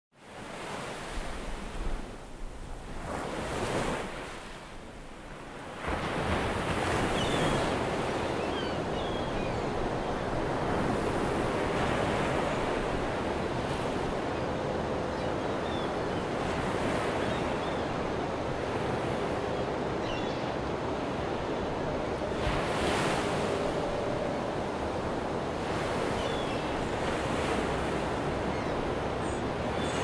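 Ocean surf: a dense, rushing wash of breaking waves. It comes up unevenly over the first six seconds, then settles into a steady wash with slow surges.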